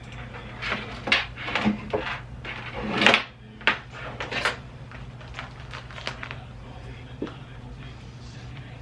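Household objects being handled while unpacking: a run of knocks, clatters and rustles for about four seconds, the loudest a swelling rustle about three seconds in, then a few light taps, over a steady low hum.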